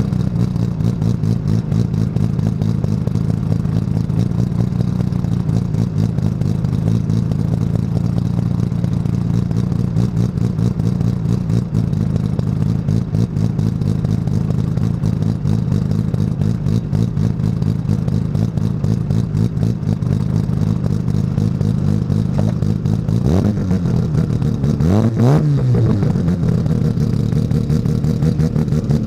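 Mazda RX-7 rotary engine running at high revs under racing load, a steady loud note. Between about 23 and 26 seconds in, the revs drop sharply and climb back twice.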